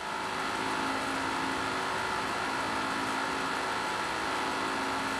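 Dell XPS 9570 laptop's cooling fans running fast, a steady whir with a humming tone, one fan sounding bad and rough: the fan is wearing out and making the annoying noise that needs a fan replacement.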